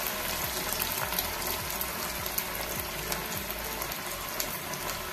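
Breadcrumb-coated cheese rolls deep-frying in hot oil in an aluminium kadai: a steady bubbling sizzle with faint scattered crackles.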